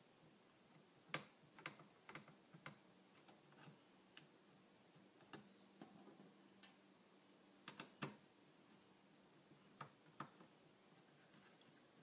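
Near silence broken by scattered faint clicks and taps: a small screwdriver backing out the laptop hard drive's retaining screws, and the tiny screws being set down on the table. A faint steady high-pitched whine sits underneath.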